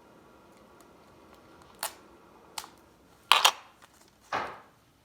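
Sticky tape being pulled from the roll and torn while a paper squishy is taped up: four short rasping pulls, the loudest a quick pair a little past the middle.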